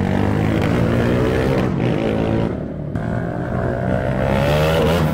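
A Honda GTR 150's single-cylinder engine running under way. The revs dip briefly about halfway through and climb again near the end.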